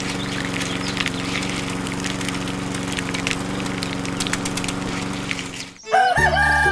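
A small motor hums steadily, driving a miniature belt-driven grinding mill, with scattered crackling clicks as beans are crushed into powder. About six seconds in, the hum cuts off and music begins.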